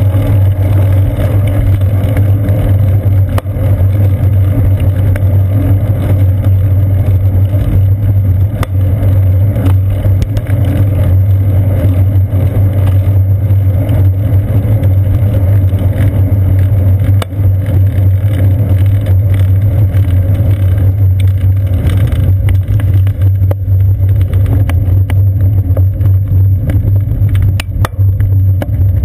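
Riding noise from a moving bicycle picked up by a seat-post-mounted camera: a steady, loud low rumble of wind and road vibration, with a few sharp clicks or rattles near the end.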